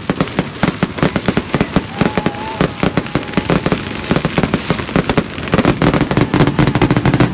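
Aerial fireworks going off in rapid succession: a dense run of bangs and crackles, many per second.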